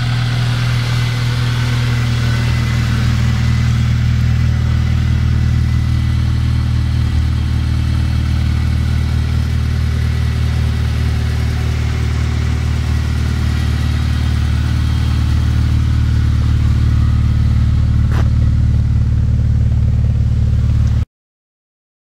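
Acura RSX's 2.0-litre four-cylinder engine idling steadily. The sound cuts off suddenly near the end.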